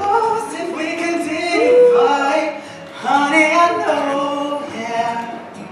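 A man singing solo into a microphone, holding long notes, in two phrases with a short break about halfway through.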